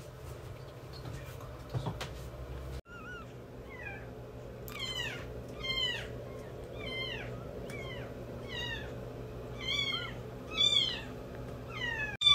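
Newborn kittens mewing: a run of short, high cries that each fall in pitch, about one or two a second. They start about three seconds in and grow louder toward the end.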